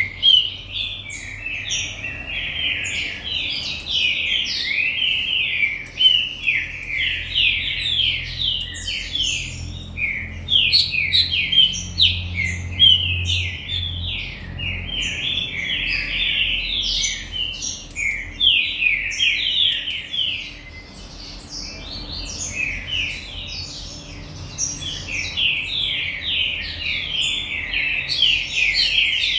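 Green-winged saltator (trinca-ferro) singing continuously, a rapid run of clear whistled phrases, with a brief lull about twenty seconds in.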